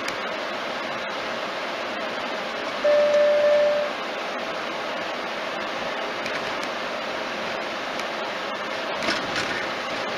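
Steady road and engine noise inside a car driving at town speed. About three seconds in, a single steady electronic beep lasting about a second stands out as the loudest sound.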